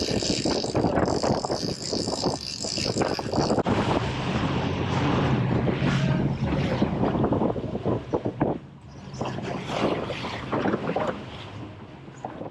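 Boat engine running under way, a steady low hum, with wind buffeting the microphone.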